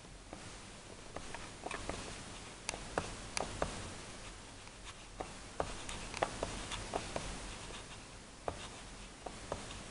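Meccano gear drive of a model yard crane's winch being turned, giving irregular sharp clicks, about two a second, over a scratchy rubbing as the hook and crate are wound up.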